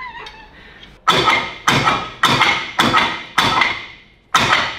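Six sharp, ringing metallic clunks, about one every half second, as a Holden HQ rear axle is yanked outward by its brake drum to work it out of the Salisbury diff housing.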